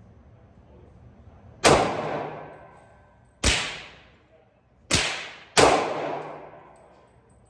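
Four pistol shots from a Glock 23, unevenly spaced, the last two fired in quick succession. Each report trails off over about a second.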